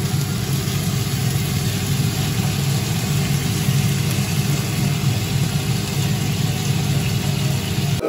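A steady low hum with a hiss over it, like a motor running without change. It cuts off suddenly at the very end.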